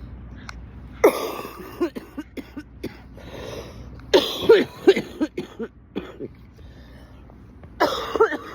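A person who is ill coughing in three hacking fits: about a second in, midway and near the end. Each fit is one loud cough followed by several shorter ones.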